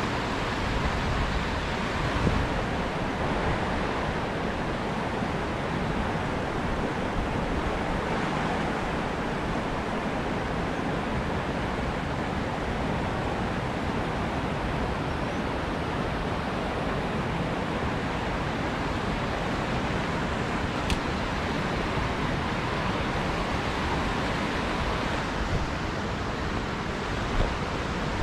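Fast-flowing river water rushing steadily over rocks, with a couple of faint knocks and a sharp click later on.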